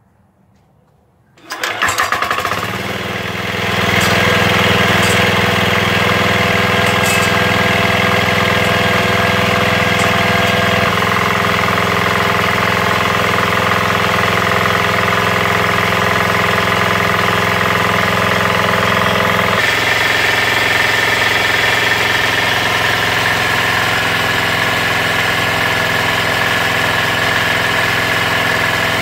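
9 HP Chinese single-cylinder diesel engine starting about a second and a half in, catching at once and settling within a couple of seconds into steady running at about 2,500 rpm, its governor set about halfway, on its first break-in run.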